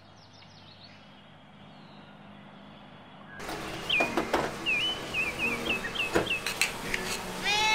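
A few seconds of quiet room tone, then a tabby cat at a sliding glass door. A few sharp knocks as it paws at the door, a run of short high chirps, and a meow beginning right at the end.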